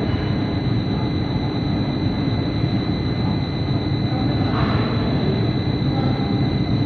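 Power cable making machinery running steadily: a constant low rumble with a thin steady whine over it, and a brief hiss about four and a half seconds in.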